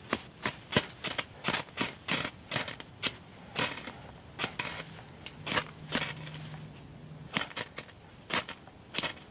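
Ferrocerium rod of a fire starter necklace scraped again and again with its striker, throwing sparks onto tinder: a string of sharp scrapes, two or three a second, with short pauses, as he strikes repeatedly to catch the fire-starter strip.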